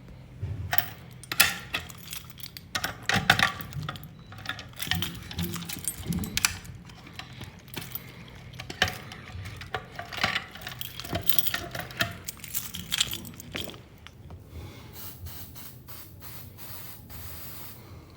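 Irregular clatter, clicks and scraping, like small hard objects being handled, with no alarm sounding. After about 14 s it thins out to a faint hiss.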